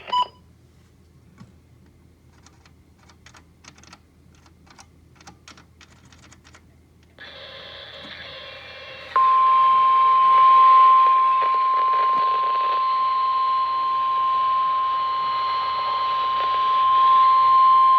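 Weather radio receiver: faint scattered clicks, then the channel opens with a hiss about seven seconds in, and about two seconds later the steady 1050 Hz NOAA Weather Radio warning alarm tone sounds for about nine seconds. The tone is the attention signal ahead of a tornado warning.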